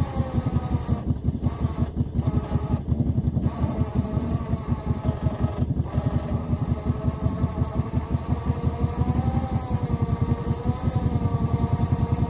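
Four-wheeler (ATV) engine running steadily with a fast, even chug, and a wavering whine over it.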